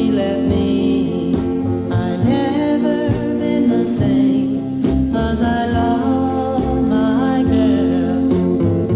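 A pop song playing: a singing voice over a band's sustained chords.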